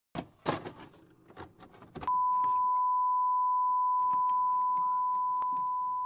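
Intro sound effects: a quick run of glitchy clicks and crackles, then from about two seconds in a single steady high beep tone that holds, fading slightly near the end.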